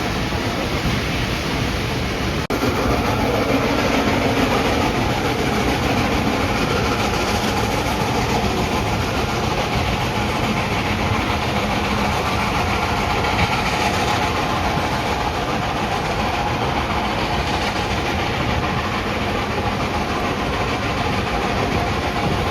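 Excursion train running along the track, heard on board: a steady rumble and rail noise from the cars, with a momentary dropout about two and a half seconds in.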